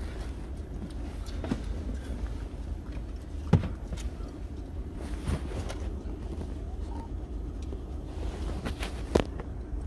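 Car engine idling, a steady low rumble heard from inside the cabin, with a few sharp knocks and clicks, the loudest about three and a half seconds in and another near the end.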